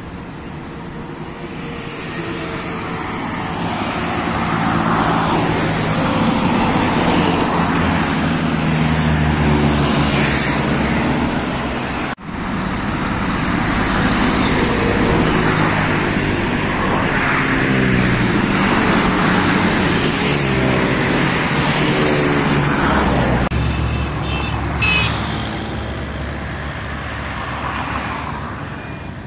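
Road traffic passing close by on a main road: trucks, motorcycles and cars going by one after another, their engine notes rising and falling as each one passes. The sound cuts out for a moment about twelve seconds in.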